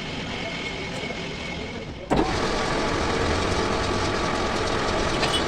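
Steady mechanical running noise that steps up louder after a sharp knock about two seconds in.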